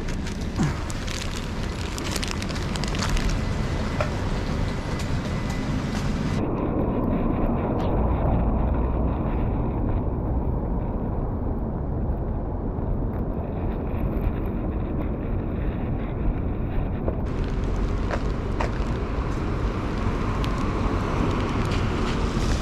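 Wind buffeting a body-worn action camera's microphone over a steady rumble of city traffic. For about ten seconds in the middle the sound turns muffled, losing its upper range, as the jacket covers the microphone.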